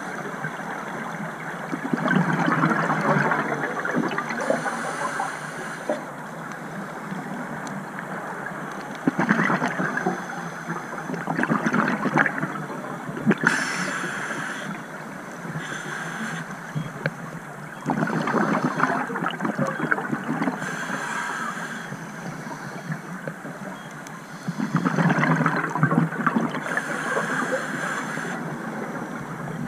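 Scuba regulator breathing recorded underwater: hissing inhalations alternate with long, gurgling rushes of exhaled bubbles, repeating every few seconds.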